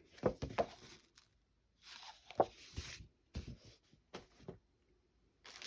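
Old paper books being handled: pages and covers rustling and sliding, with several light knocks as the books are moved and set down.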